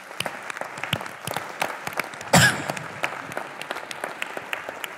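Large audience applauding, many hands clapping together, with one louder burst standing out about halfway through.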